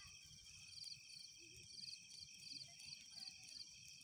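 Night insects, crickets among them, singing faintly: a steady high shrill chorus with a pulsed chirp repeating about twice a second.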